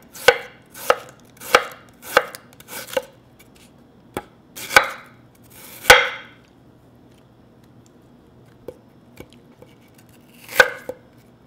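Chef's knife slicing a peeled Korean pear on a wooden cutting board, each cut ending in a knock of the blade on the board. The first five strokes come about one every half second or so, then two slower ones, then a pause of a few seconds before two more cuts near the end.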